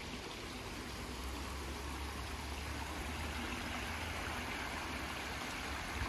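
Shallow brook babbling over stones and low stone weirs: a steady rushing trickle that gets a little louder about a second in.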